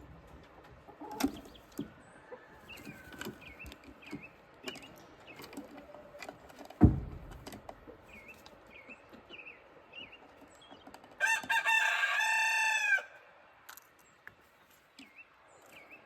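Chickens in a coop: soft repeated hen chirps and clucks with scattered sharp taps, then one loud thump about seven seconds in. A bird crows for about two seconds near the end.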